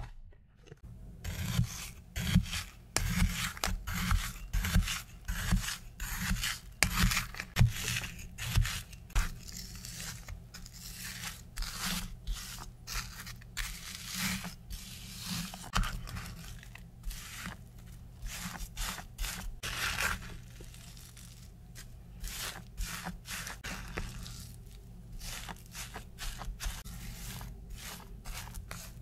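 Metal fork scraping and raking through frozen strawberry lemon sorbet in a plastic tub, breaking up the icy mass in a quick run of crunchy scrapes. It starts about a second in, is loudest over the first several seconds, and grows softer later.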